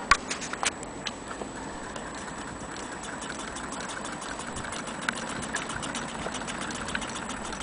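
Antique hand-crank Willcox & Gibbs chain stitch sewing machine running and stitching fabric: a steady, rapid mechanical ticking, with a few louder clacks in the first second.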